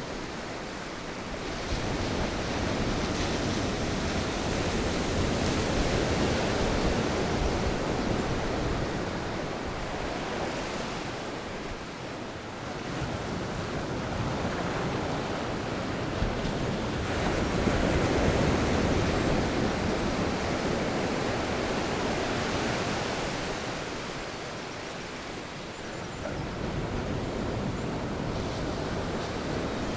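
Sea waves breaking and washing on a beach, a steady surf with wind, swelling louder twice and easing off between.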